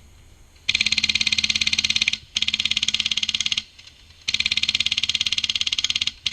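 Airsoft light machine gun, a G&G LMG running a Wolverine Inferno Gen 2 HPA engine, firing full-auto in rapid, even bursts. There are three bursts of about one and a half seconds each with short pauses between, and a fourth starts right at the end.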